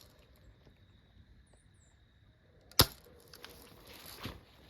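A single sharp crack almost three seconds in, a shot taken at a target across the water.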